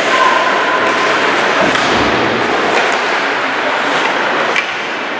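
Continuous din of spectators in an indoor sports hall, with a few sharp knocks and thuds from the play on court.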